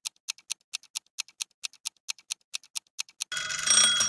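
Quiz countdown-timer sound effect: clock ticks at about four to five a second, then about three seconds in a louder, short reveal sound effect with several high ringing tones over a rush of noise.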